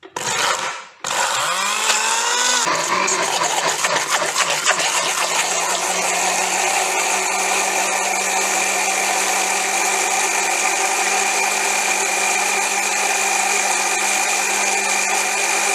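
Electric kitchen blender blending boiled cucumber into juice. It gives a brief pulse, then starts again about a second in, its motor rising in pitch for a second or two before it runs steadily with a constant whine.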